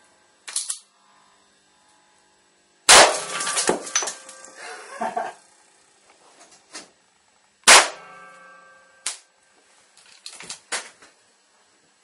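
Two sharp bangs from a high-current electrical arc blasting a small circuit board off a metal bar, about five seconds apart. Each bang leaves a brief ringing tail, and crackling follows the first. A few smaller cracks and clicks come in between.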